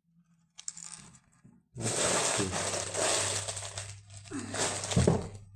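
Loose LEGO Technic pieces rattling and plastic packaging crinkling as they are handled and tipped out. There is a long stretch of about two seconds, then a shorter one near the end.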